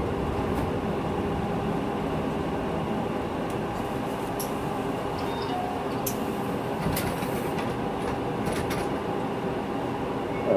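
Inside a city bus: steady engine and road rumble with a constant hum, and a few short high clicks and rattles in the second half.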